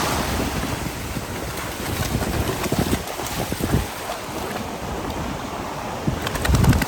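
Strong wind buffeting the microphone in uneven gusts, with surf washing behind it.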